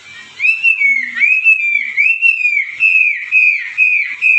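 A bird singing a loud run of clear whistled notes, each rising and then falling in pitch, about two a second.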